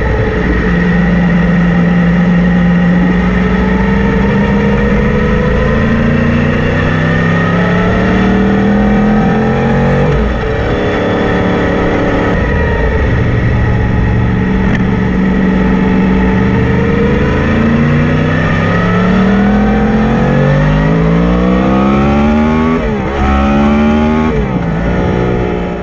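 Yamaha MT-10's inline-four engine running hard up a mountain road. Its pitch climbs through each gear and drops suddenly at the shifts, about ten seconds in and again at about twelve seconds. Near the end there is a run of quick drops and rises in pitch.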